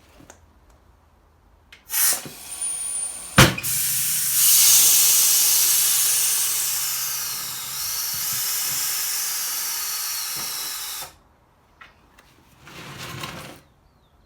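Compressed air hissing from a tyre changer's bead breaker: a short hiss, a sharp clack as the bead lets go, then a long hiss of about seven seconds that cuts off suddenly.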